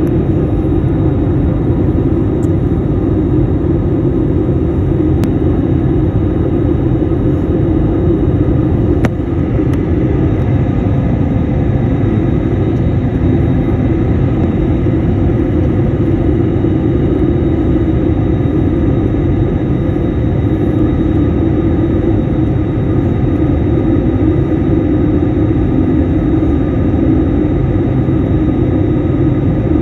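Steady engine and rushing-air noise inside an airliner cabin as the plane descends on approach to land.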